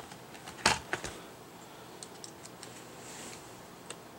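A screwdriver and the plastic parts of a Roomba 500 robot vacuum being handled, clicking and tapping. Two sharper knocks come close together about a second in, then faint scattered ticks.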